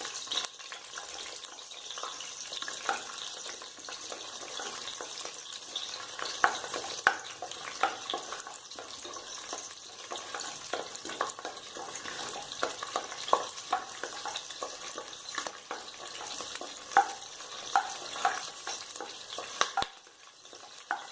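Green chillies and whole spices frying in hot oil, a steady sizzle, while a spoon stirs them with irregular scraping clicks against the pan. The sizzle dips briefly near the end.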